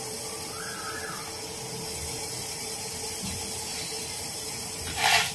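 Steady hiss throughout, with one short, sharp noise about five seconds in.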